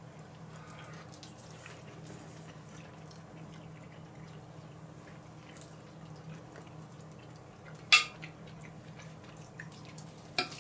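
Quiet room tone with a low steady hum and faint small clicks of food and plate being handled while eating, and one sharp click about eight seconds in.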